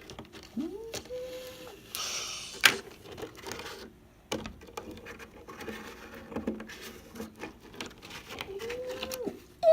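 Light clicks, taps and a brief rustle of small plastic toy pieces being handled on a tabletop, with a short hummed note about half a second in and again near the end.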